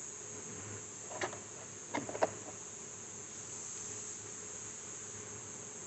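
A few short, light clicks of plastic door trim parts being handled and fitted into place: one about a second in and two close together around two seconds in. Under them runs a steady high-pitched insect chirring.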